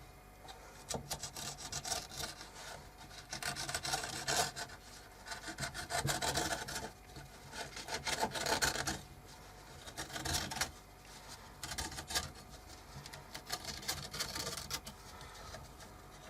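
A sharp craft knife rasping through glue-stiffened cloth as the excess is trimmed off a roof frame, in a series of irregular scraping strokes.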